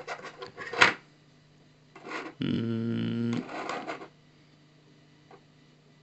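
A small circuit board handled in the fingers and set down on a tabletop: a few sharp clicks and knocks in the first second, the loudest near the end of that second. About two and a half seconds in comes a steady pitched hum lasting about a second.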